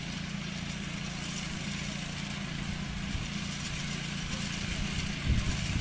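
Engine of a harvesting machine running steadily with a low hum, growing louder and rougher near the end.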